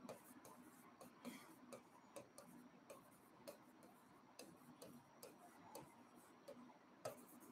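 Faint, irregular ticks and taps of a stylus pen on an interactive display panel during handwriting, about two a second, over near silence.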